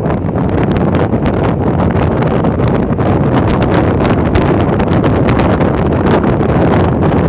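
Wind buffeting the microphone of a moving vehicle, over the vehicle's low, steady engine and road noise, with frequent irregular clicks and rattles.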